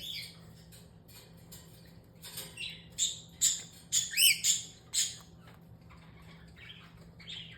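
Cockatiels calling: a quick run of about eight short, high squawks and chirps between about two and five seconds in, then a few fainter calls near the end.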